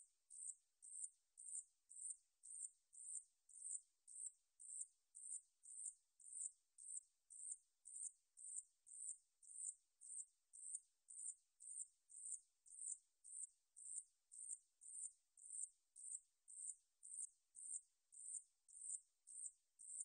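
Ussur brown katydid (산여치, Paratlanticus ussuriensis) singing: an even series of short, very high-pitched buzzing chirps, about two a second.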